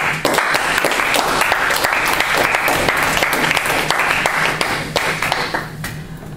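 Small audience of classmates clapping, breaking out suddenly at the end of a speech and dying away about five and a half seconds later.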